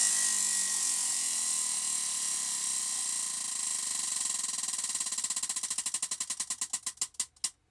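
Prize wheel spinning, its pegs flicking past the pointer in a fast run of clicks that gradually slows and spaces out until the wheel stops near the end.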